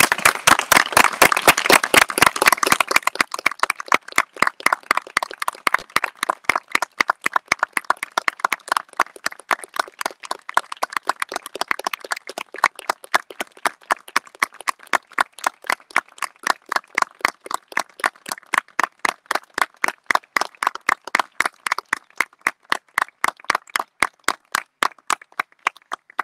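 Small audience applauding, loudest and densest in the first few seconds, then thinning to a sparser run of separate claps.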